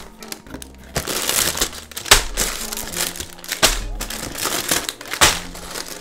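Sealed plastic bags of LEGO pieces crinkling as they are lifted out of a cardboard box and set down on a wooden table, with three thumps about two, three and a half and five seconds in. Light background music runs underneath.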